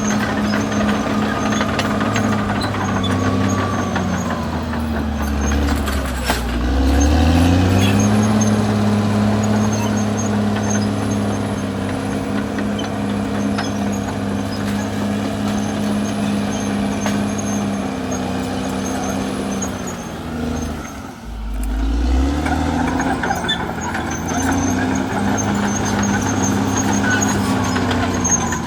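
Caterpillar D6R XL bulldozer's diesel engine working under load. Twice the engine note sags and then climbs back up, about five seconds in and again just past twenty seconds, as the engine lugs down and recovers.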